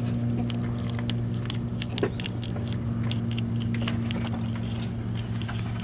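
Boat engine running with a steady hum. Scattered light clicks come from a fillet knife cutting into a triggerfish on a metal table.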